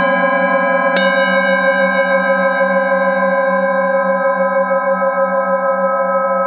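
Hand-held metal singing bowl struck with a mallet right at the start and again about a second in, then rubbed around its rim so it rings on in a steady tone of several pitches with a slow wavering pulse.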